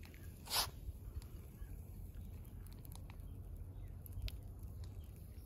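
Molten copper poured from a crucible into ingot molds, heard as faint scattered ticks and crackles over a low rumble, with one short hiss about half a second in.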